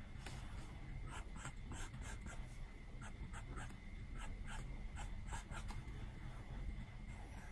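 Stylus tip stroking and tapping on an iPad's glass screen while drawing: short, light scratchy strokes coming in quick, irregular succession.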